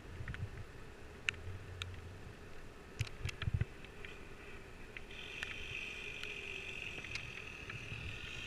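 Scattered clicks and a few knocks of climbing gear, over a low wind rumble on the camera's microphone. From about five seconds in, a steady high whir sets in as the abseil rope runs through the descender.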